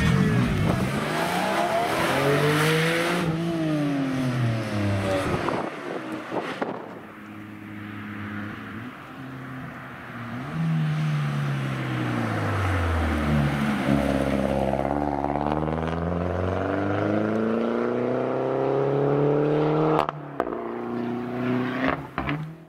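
Rally cars passing at speed on a tarmac stage with their engines revving hard. A first car's note rises and falls over the first five seconds. After a quieter spell, a Peugeot 208 slows with its engine pitch falling, then accelerates away with the pitch climbing, until the sound cuts off abruptly near the end.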